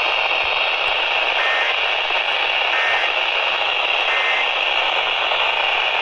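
Steady hiss of static from a handheld VHF radio's speaker, receiving a noisy FM channel.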